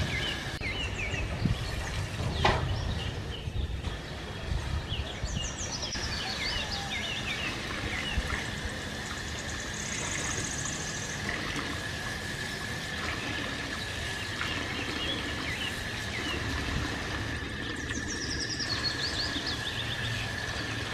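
Tap water running and splashing into a steel bowl as leaves, chillies and wood apples are rinsed under it. Birds chirp over it, a few times in quick falling runs, and a steady high thin tone joins about six seconds in.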